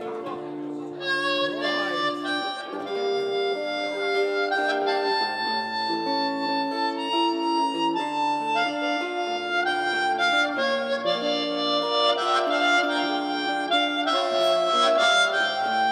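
Harmonica played cupped against a handheld microphone, coming in about a second in with a slow melody of long held notes.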